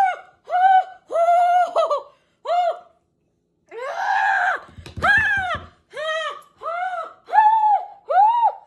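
A woman's short, high-pitched cries in quick succession, each rising and falling in pitch, with a rougher, breathier outburst about halfway through: pained wailing at the burning heat of the extremely spicy One Chip Challenge chip.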